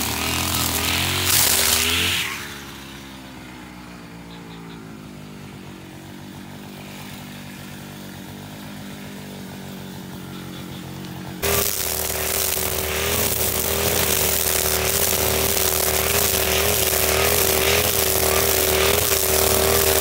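Husqvarna 542RBS two-stroke backpack brush cutter with a nylon-line head. It runs at full throttle, then drops to idle about two seconds in, its pitch falling. It idles steadily, then is suddenly back at full throttle near the middle and stays there to the end, its note wavering in a regular rhythm as it cuts grass.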